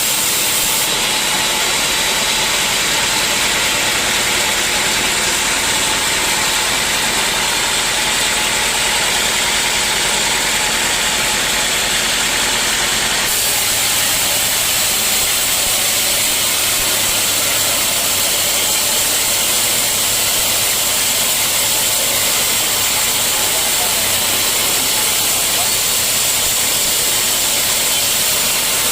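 Sawmill machinery running steadily, a loud even rushing noise with a low motor hum; the sound shifts about halfway through as a deeper hum comes in.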